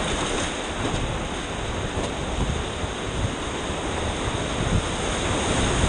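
Steady rush of river water around a whitewater raft, with wind noise on the microphone.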